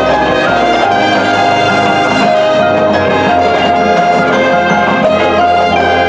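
High school marching band playing, its brass section holding sustained chords over low bass notes.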